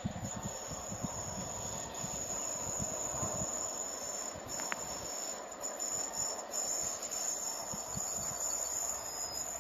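Insects chirring steadily and high-pitched in trackside grass. Under it, a train's low rumble fades away about halfway through.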